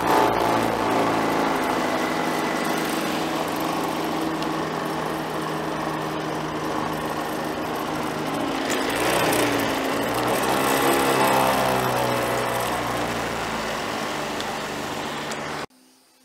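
Small boat's outboard motor running at speed underway, with rushing wind and water. The sound cuts off suddenly near the end.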